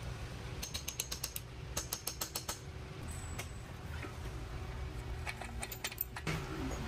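A ratcheting wrench clicking in short quick runs as a bolt on the engine-mount bracket is turned, with small metal tool clicks between the runs.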